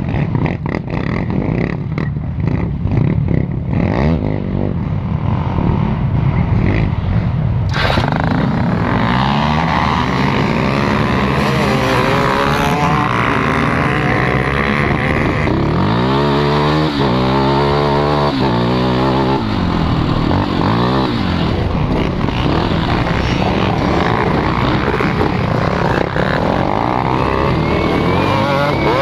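KTM 450 XC quad's single-cylinder four-stroke engine, heard from the rider's seat during a dirt race. For the first eight seconds it is a low engine rumble. Then the sound suddenly opens up with rushing wind, and the revs climb and drop again and again as the rider accelerates and shifts.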